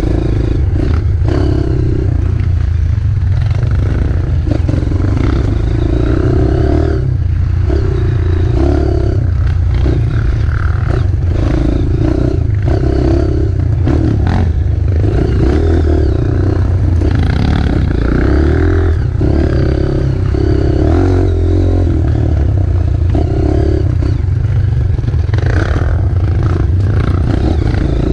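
Off-road trail motorcycle engine running over rough ground, the throttle opening and closing every second or two, with clattering knocks from the bike over the terrain.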